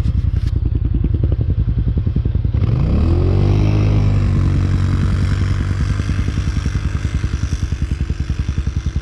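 ATV engine idling, then revved up about two and a half seconds in, held, and slowly easing back down toward idle. It runs on what sounds like a stock exhaust that the riders call very quiet.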